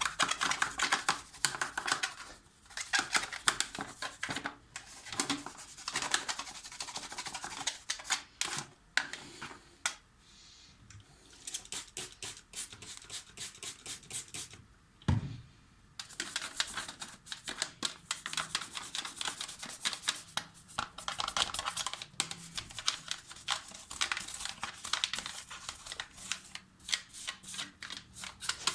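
Fast back-and-forth scrubbing strokes, a brush or scourer working over a removed dishwasher part, in long runs. They pause briefly about ten seconds in, and a single dull thump comes about fifteen seconds in.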